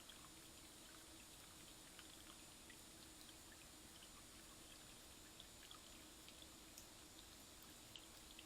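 Near silence: a steady low hiss and faint hum, with faint scattered ticks.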